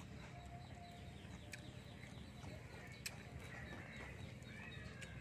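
Faint animal calls over a low steady background hum, with a couple of sharp light clicks, the loudest about three seconds in.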